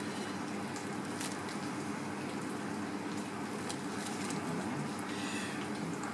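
Steady background hiss and hum of a kitchen, with a few faint clicks scattered through it.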